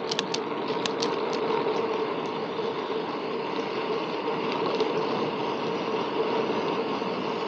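Steady rushing noise of wind and tyres from a bicycle on the move, with a few sharp clicks in the first second and a half.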